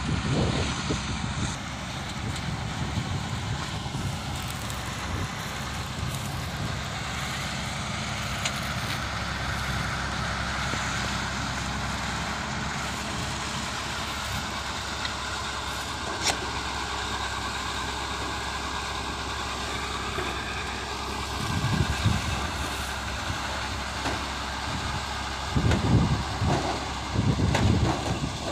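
A locally built combine harvester running steadily, its engine and threshing machinery making a constant mechanical drone. Wind buffets the microphone a few times near the end.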